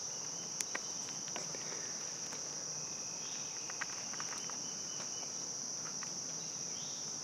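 Steady, high-pitched chorus of crickets in the woods, with a few faint ticks about half a second and a second and a half in.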